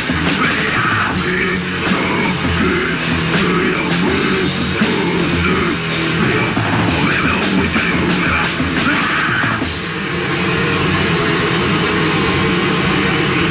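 Loud, distorted heavy band music from a 1987 demo recording, with electric guitars and a drum kit. About ten seconds in the sound dips briefly, then carries on more evenly.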